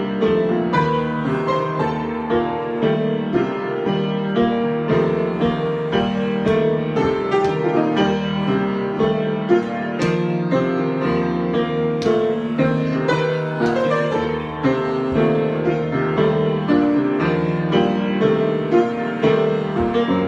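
Solo piano improvisation: a continuous flow of notes and chords, with frequent note attacks.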